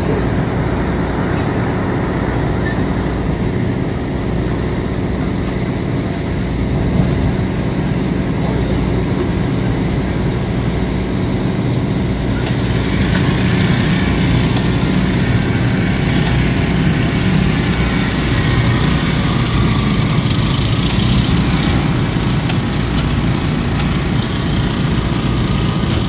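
Small gasoline engine of a portable hydraulic rescue-tool power unit running steadily, getting a little louder and harsher about halfway through.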